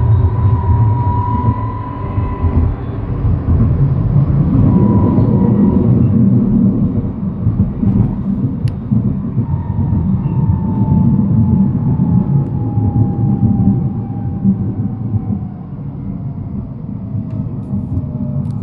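NGT12 tram running along its track, heard from on board: a steady rumble of wheels on rails with a thin motor whine that glides down in pitch over several seconds in the second half. A single sharp click comes about halfway through.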